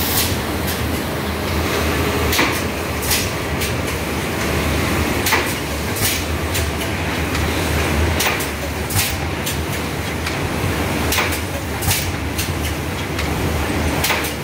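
Automatic PET bottle blow moulding machine running: a steady low hum, broken by sharp hissing clicks that come in pairs about two-thirds of a second apart, every two to three seconds.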